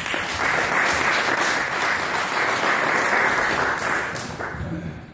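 Audience applauding, steady and full for about four seconds, then dying away near the end.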